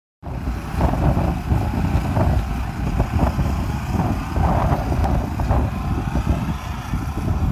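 A truck's turbo diesel engine idling: a steady, loud, rough low rumble.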